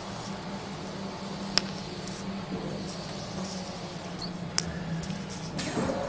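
Automatic laminated glass cutting machine running: a steady low hum, two sharp clicks about three seconds apart, and a few short hisses near the end.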